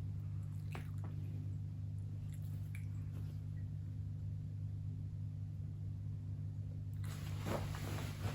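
Steady low hum with a few faint clicks in the first few seconds, then a rustling shuffle about seven seconds in.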